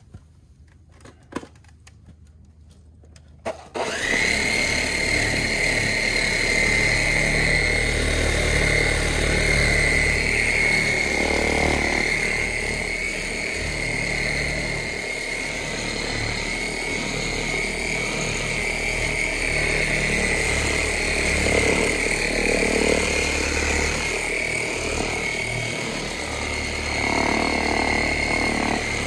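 A corded electric rotary buffer with a wool pad starts up about four seconds in, after a few light clicks, and runs steadily with a high whine while buffing wax off a travel trailer's side wall.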